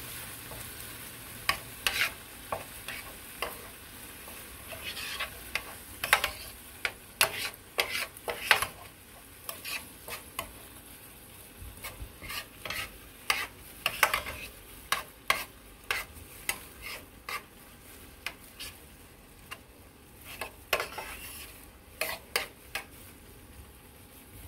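A metal spoon stirring diced tomatoes, garlic and onion in a square copper-coloured frying pan, scraping and clicking irregularly against the pan, over the faint steady sizzle of the vegetables frying in oil.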